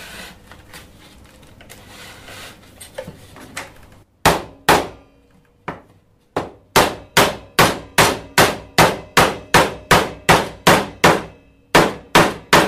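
Wooden carpentry mallet tapping a moulded plastic hard face onto the end of a hive box bar to seat it flush. A couple of knocks come about four seconds in, then a steady run of sharp taps at about two or three a second, with a few more near the end. Before the tapping there is soft rubbing and scraping as the plastic piece is pushed on by hand.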